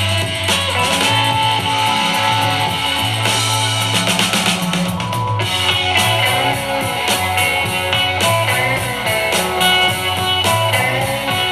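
Guitar-led music with a steady bass line and drums, played through a Bose SoundLink Micro Bluetooth speaker as a sound test.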